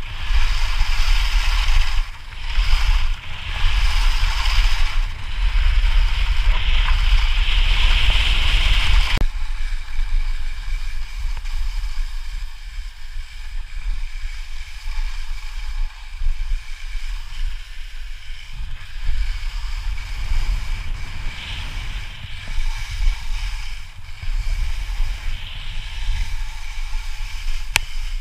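Skis hissing and scraping over snow during a fast descent, with wind buffeting the helmet camera's microphone in a heavy low rumble. The scraping is loudest for roughly the first nine seconds, then eases to a softer hiss.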